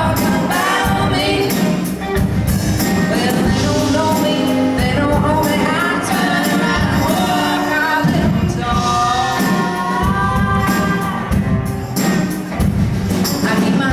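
Women's voices singing in harmony over live band accompaniment with a steady percussive beat.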